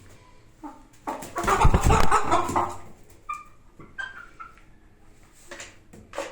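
Animal commotion: a loud, noisy flurry lasting nearly two seconds, followed by several short, high-pitched calls.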